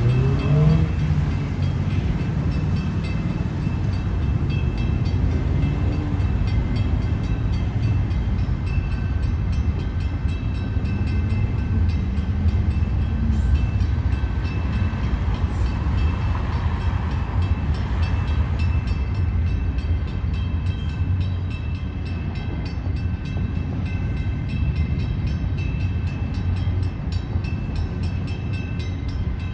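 A long train passing close by: a steady rumble of the wheels on the rails, with a few thin, steady high tones held above it.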